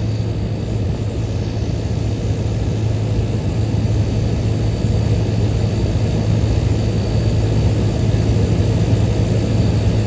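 1977 GE Superthrust window air conditioner running in cooling mode: a steady low compressor hum under the even rush of its fan moving air.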